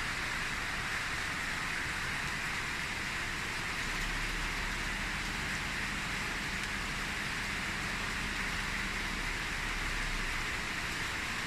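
Steady hiss with no change, strongest in the upper middle range; no gunshots or other sudden sounds stand out.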